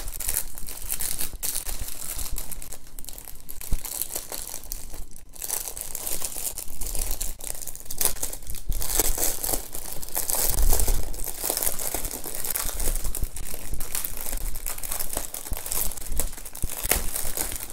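Clear plastic packaging crinkling and rustling as hands handle it and pull it open, in a continuous run of irregular crackles.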